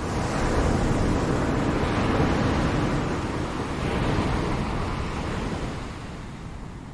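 Ocean surf: a wave breaks and washes in, its rush swelling right at the start, surging again about four seconds in, then dying down near the end.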